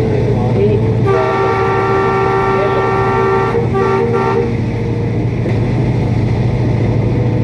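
Locomotive horn of a ZCU-20 diesel-electric, blown for about three seconds as a chord of several steady tones with a short break near the end, over the steady low drone of the locomotive running under way, heard from the cab.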